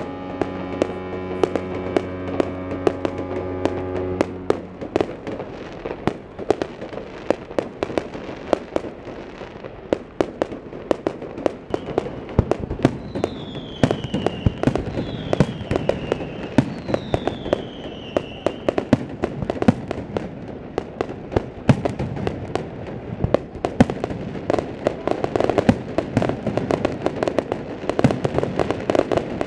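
Fireworks display: a rapid, irregular run of bangs and crackling bursts, with three falling whistles in the middle. At the start a deep, steady ship's horn sounds, stopping about four seconds in.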